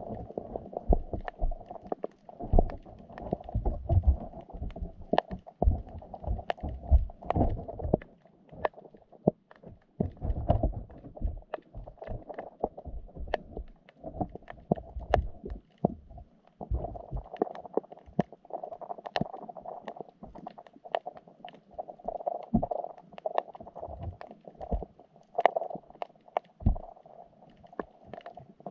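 Underwater sound picked up by a GoPro inside its waterproof housing, in a wire fish trap: low muffled thumps and rumbles from the moving water, with irregular sharp clicks and knocks throughout.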